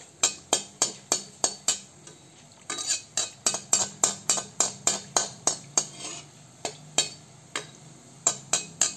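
A perforated metal skimmer tapping and clinking against the side of a metal kadai, about three quick taps a second, as it swirls hot oil around frying gulab jamun balls, with the oil sizzling softly underneath. The taps pause briefly about two seconds in and come more sparsely past the middle.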